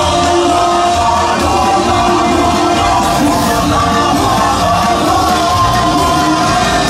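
Loud music with singing voices.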